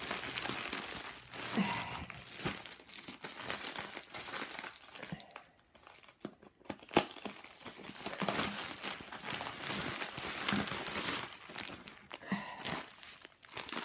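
Bubble wrap and plastic packaging crinkling and rustling as they are handled and unwrapped, with scattered sharp clicks and a brief lull about halfway through.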